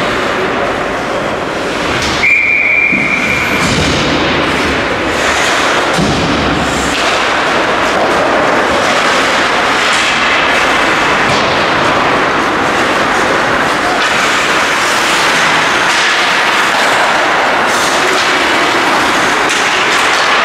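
Ice hockey being played in a rink: a steady rush of skates scraping the ice, with occasional knocks of sticks and puck. A whistle is blown once, for about a second and a half, about two seconds in.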